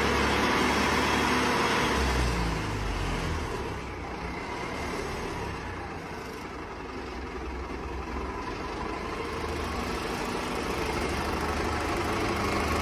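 HTZ tractor-bulldozer engine running steadily, growing quieter about two to four seconds in and louder again towards the end.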